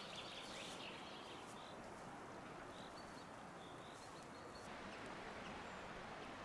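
Steady rush of a fast, shallow river running over stones, with small birds chirping above it: a short trill at the start, then a few single chirps. Near the end the water sound changes and loses its highest hiss.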